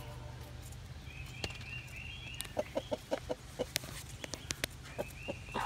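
Hens clucking while they peck at watermelon rind: a quick run of short clucks, several a second, about halfway through, with sharp pecking clicks scattered throughout. Twice there is a run of high, quickly repeated chirps, over a steady low hum.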